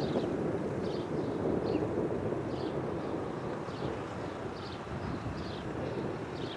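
Distant rumble of the Gulfstream G650's twin Rolls-Royce BR725 turbofans, slowly fading as the departing jet moves away. Faint short high chirps repeat about every half second to second.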